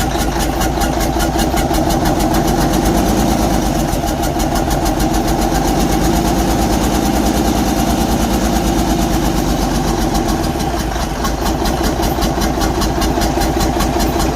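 Detroit Diesel DD15 inline-six diesel idling with an even, rapid pulsing beat. This is the bad sound of a damaged cylinder head losing compression, which the owner puts down to a failed valve seat.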